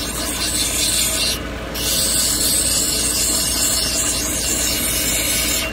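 Plume agate cabochon on a dop stick being ground against a wheel of a cabbing machine: a steady grinding hiss over the machine's low hum, dropping away briefly about one and a half seconds in.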